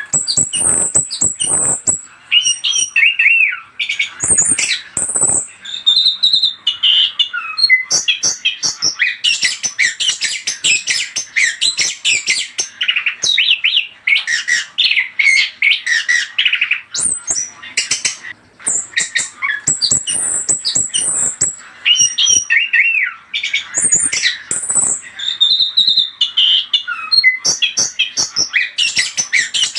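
Chestnut-capped thrush (anis kembang) singing a fast, varied stream of whistles, slurred notes and chattering, with sharp clicks in between. It is the kind of lure song played to get a kept bird to answer. The same phrases come round again partway through.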